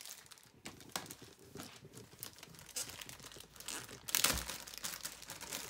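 Thin plastic protective bag crinkling and rustling as a laptop is slid out of it, a run of small crackles with a louder burst about four seconds in.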